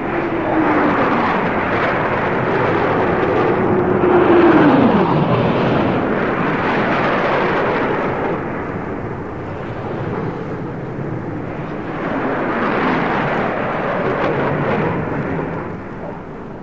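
RAF English Electric Lightning jet fighters flying low overhead in a salute flypast: jet engine noise with a whine that drops in pitch as they pass, loudest about four to five seconds in, then a second swell of jet noise later on.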